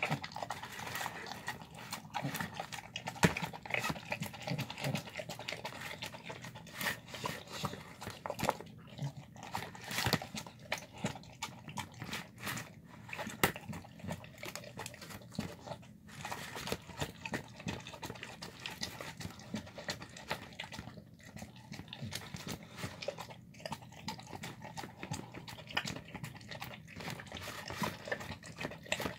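A dog eating a wet mash of chicken, pinto beans, rice and tendons from a plastic tub: steady chewing and mouthing, with many irregular short clicks and smacks.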